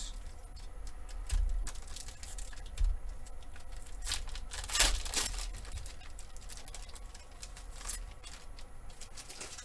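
Shiny foil wrapper of a Panini Chronicles basketball card pack crinkling as it is handled, in short irregular crackles with the loudest about five seconds in.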